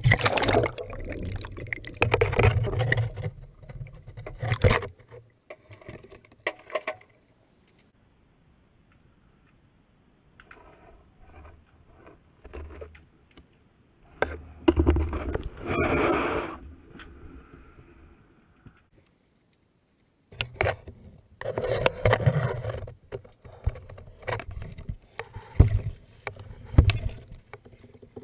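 Water sloshing and splashing against an underwater camera on a pole, with knocks, rattles and scrapes on the camera and its frame as it is handled and moved in the water. There are two short stretches of near silence partway through.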